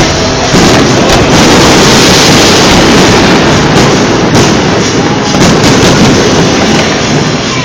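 Fireworks going off in quick succession, loud enough to overload the recording.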